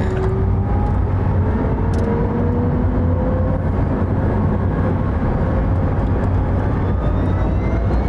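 Rimac Nevera's four electric motors and their gearing whining inside the cabin under hard acceleration short of full power: several thin whines rise steadily in pitch over a loud, steady low rumble of road noise.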